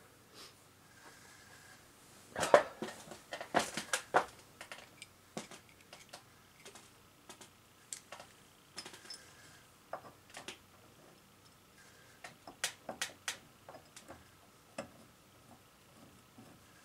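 Scattered sharp clicks, taps and light clinks of hand work on a ceiling light fixture's mounting hardware and screws, with a dense run of loud knocks a couple of seconds in and another run later on.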